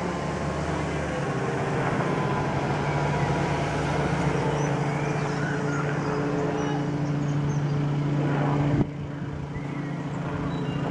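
Low-flying Robinson light helicopter passing overhead: a steady drone from its piston engine and two-blade rotor. The sound drops suddenly in level about nine seconds in.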